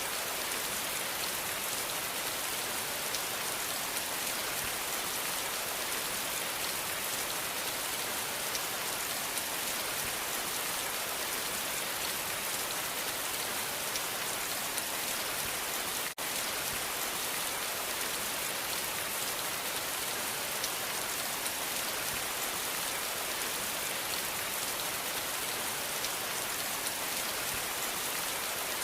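Steady rain falling: an even hiss of many drops with faint scattered ticks. The sound drops out for an instant about sixteen seconds in.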